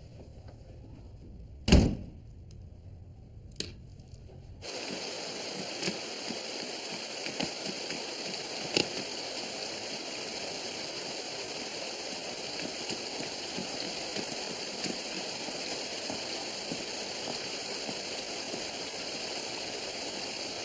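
A door bangs once about two seconds in, the loudest sound, with a lighter click a little later. Then a steady wash of indoor swimming-pool water sets in, with small splashes here and there.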